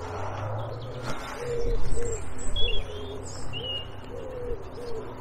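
A pigeon cooing, a steady run of short, low coos repeated about every half second. A small bird gives a few brief high chirps about two and a half to three and a half seconds in.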